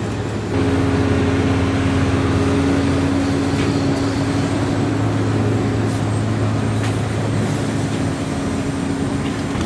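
An engine running steadily, a low even hum that gets louder about half a second in.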